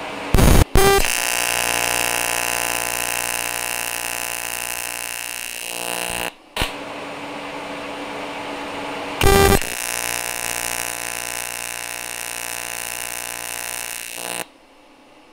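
AC TIG welding arc on aluminum, run at about 152 amps with 60 Hz AC frequency: a steady electric buzz. It has a short loud surge near the start and another about nine seconds in, drops out for a moment about six seconds in and picks up again, then stops near the end.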